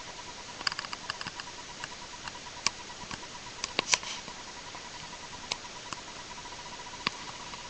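Scattered light clicks and taps over a steady hiss, bunched about a second in and again near four seconds in, with a faint high pulsing tone underneath.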